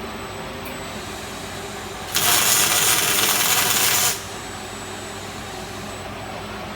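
Fronius CMT robotic welding arc on steel tube burning for about two seconds, a loud even hiss that starts and stops abruptly, over a steady machine hum.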